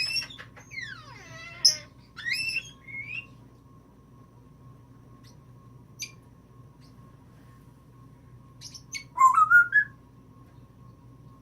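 African grey parrot (Timneh) whistling and chirping. In the first three seconds there is a long falling whistle and a few quick rising chirps. A single click comes about six seconds in, and a short rising whistle, the loudest sound, follows about nine seconds in.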